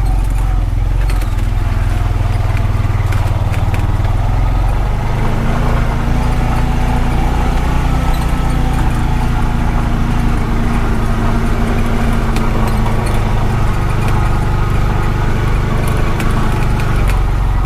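Honda Pioneer 520 side-by-side's single-cylinder engine running steadily as the vehicle drives along, a continuous low drone.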